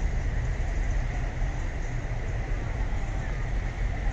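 Steady street noise dominated by a low rumble, with no distinct events.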